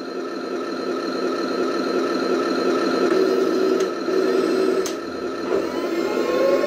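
Heng Long 1/16 Leopard 2A6 RC tank switched on and running, its onboard sound unit playing a steady simulated tank engine through its small speaker. A couple of sharp clicks come a few seconds in, and near the end a rising whine sets in as the turret begins to traverse.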